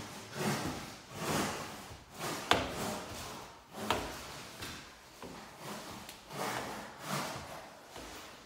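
Squeegee blade swept across window film on glass, a rubbing swish about once a second, with two sharp knocks near the middle.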